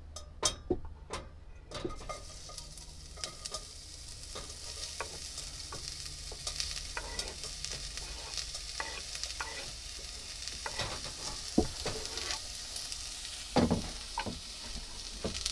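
Chopped leek and garlic sizzling steadily as they fry in a little hot oil in a pot, starting about two seconds in once they are scraped from the board. Knife taps and scrapes on a wooden chopping board click over the sizzle, with a louder knock near the end.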